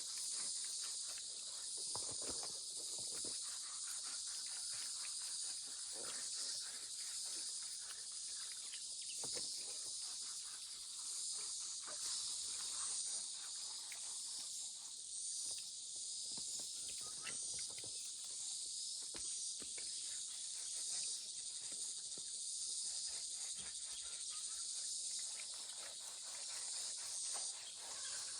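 A steady high-pitched chorus of insects, like crickets, chirring without a break, with scattered soft knocks and rustles of handling or work underneath.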